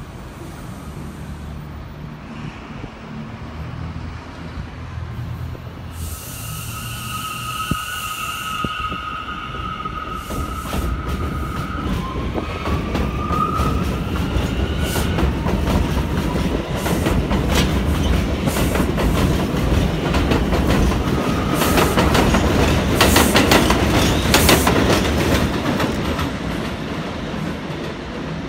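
An R179 subway train pulling out from an elevated station. A steady high whine starts a few seconds in and bends in pitch around the middle, while the rumble and clicking of the wheels over rail joints grows louder as the cars pass. The clicking peaks near the end and then eases off.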